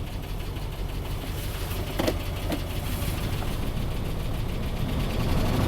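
2005 Dodge Ram 2500's 5.7 Hemi V8 idling, misfiring on one dead cylinder with a tapping under the hood, which the technician takes for a seized lifter roller that has chewed up its cam lobe. Two short clicks about two seconds in.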